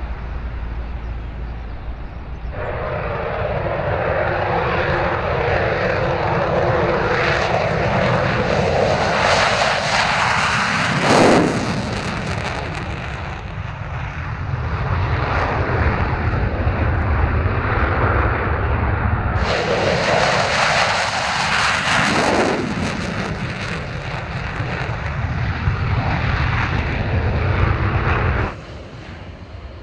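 Lockheed CP-140 Aurora four-engine turboprop climbing away, then, after cuts, F-16 fighter jets taking off with the single turbofan engine at full power. The jet noise swells to a sharp peak twice as the jets pass.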